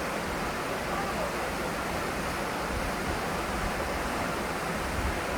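Steady rushing of water in a mountain valley stream.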